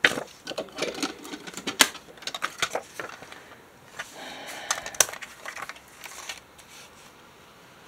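A white plastic slide paper trimmer and a sheet of decorative paper handled on a desk: a quick run of light clicks and taps with paper rustling over the first three seconds, a brief rustle about four seconds in, then a single sharp tap about a second later.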